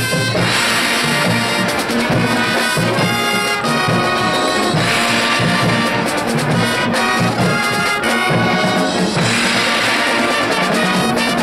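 High school marching band playing, its brass section to the fore.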